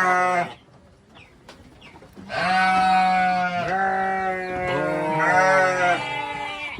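A pen of goats bleating, several calls overlapping, with a lull of about two seconds shortly after the start.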